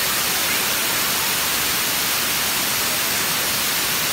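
Steady rush of stream water pouring over a concrete weir, heard as an even hiss.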